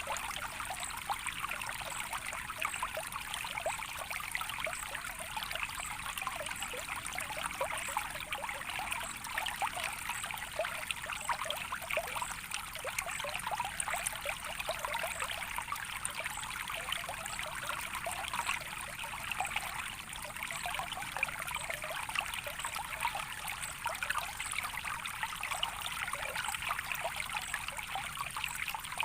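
Running water trickling steadily, a dense patter of small quick splashes over a soft hiss.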